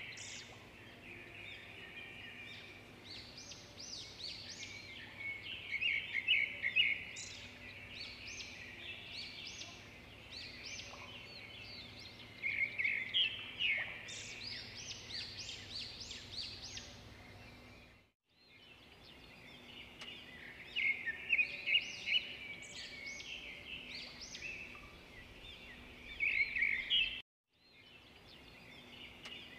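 Small birds chirping and singing in quick, repeated high trills and phrases, broken by two brief dropouts to silence, about two-thirds in and near the end.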